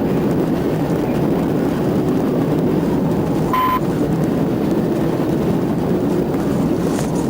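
Steady road and engine noise of a patrol car driving at high speed in a pursuit, with one short beep about three and a half seconds in.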